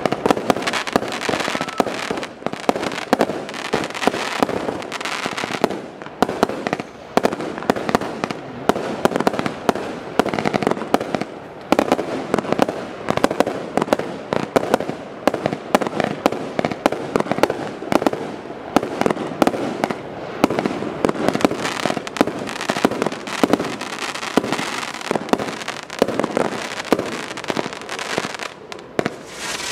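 Celtic Fireworks Tardis II firework cake firing a rapid, nearly continuous barrage of shots and aerial bursts, many bangs a second with only brief lulls.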